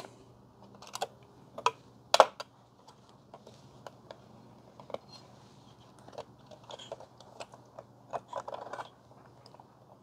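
Scattered light clicks and taps of hands working hardware around a motherboard's CPU socket, the sharpest about two seconds in, with a short rustle near the end.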